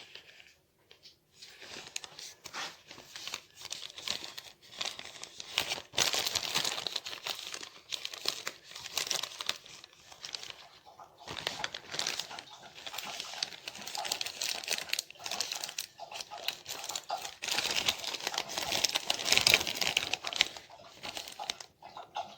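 Thin plastic litter box liner bag crinkling and rustling as it is handled and unfolded, in irregular bursts that grow louder about six seconds in, ease off briefly midway and are loudest near the end.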